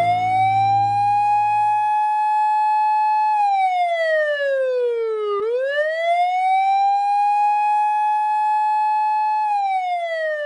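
Emergency vehicle siren in a slow wail: the pitch rises, holds for about three seconds, slides down, then rises and holds again before falling near the end.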